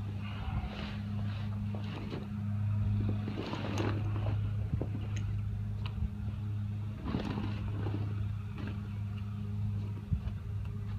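Heavy PVC inflatable-boat fabric rustling and crinkling in several short bursts as it is lifted, unfolded and shifted on grass, over a steady low hum.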